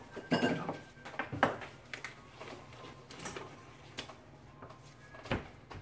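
Scattered light knocks and clatter of kitchen utensils handled on a tabletop: about half a dozen separate short strikes with quieter gaps between.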